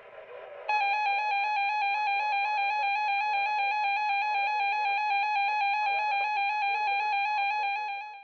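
Emergency Alert System attention signal: a steady, harsh two-tone alert sounding for about seven and a half seconds. It starts under a second in, after a moment of quieter program audio, and cuts off abruptly near the end.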